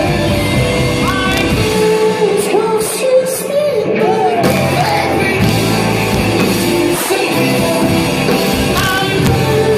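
A rock band playing live, with a singer's voice gliding over guitars, bass and drums. The lowest bass and drum notes briefly drop away about two to four seconds in.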